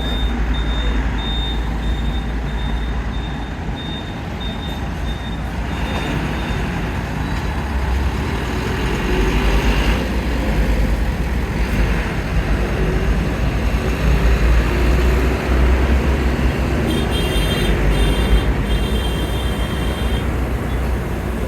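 Road traffic at a busy junction: vehicle engines running and passing in a steady, continuous rumble, with faint high, pulsing beeps early on and again near the end.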